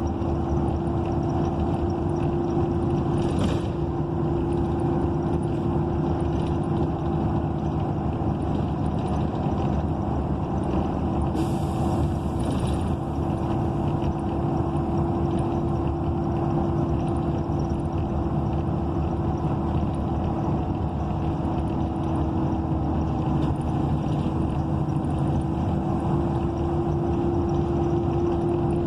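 Inside a 2012 ENC EZ Rider II BRT transit bus under way: its Cummins Westport ISL G natural-gas engine and Allison B300R automatic transmission running steadily, with a constant tone over the rumble. Brief hisses sound about three seconds in and again about eleven seconds in.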